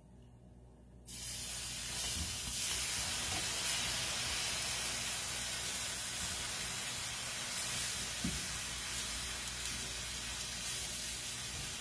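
Cold milk poured into a hot skillet of browned flour and steak drippings, hissing and sizzling loudly as it hits the pan and turns to steam; the hiss starts suddenly about a second in and holds steady.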